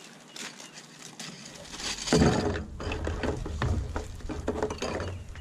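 Plastic bag crinkling and rustling as it is opened and pulled out of a cardboard box, with scattered handling clicks, louder from about two seconds in.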